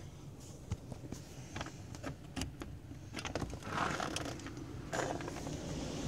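A run of sharp clicks and rattles, then a scrape about five seconds in as a door is unlatched and opened, letting in the steady rush of storm wind near the end.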